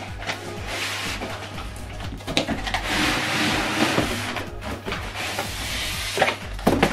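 Polystyrene foam packing and cardboard scraping and rustling as a foam-packed soundbar is slid out of its box, with a few short knocks along the way.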